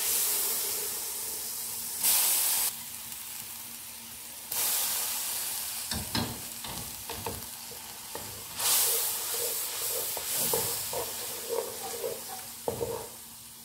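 Hot spiced oil sizzling in a metal karahi, swelling several times as chopped fresh coriander goes in. From about halfway on, a wooden spatula stirs it, knocking and scraping against the pan.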